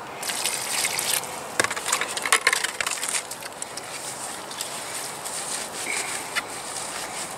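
Hydraulic cement being mixed with water in a plastic bucket with a flat wooden stick: irregular knocks of the stick against the bucket and scraping strokes through the wet mix.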